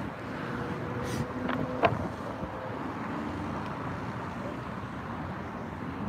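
Steady noise of road traffic from cars passing on the street, with wind on the microphone.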